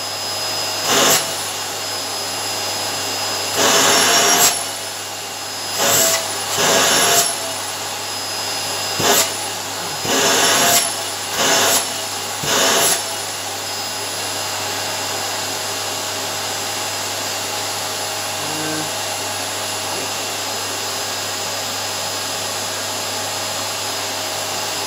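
Vacuum cleaner running on carpet with a steady whine. In the first half it surges louder several times for a second or so, then it settles to an even drone.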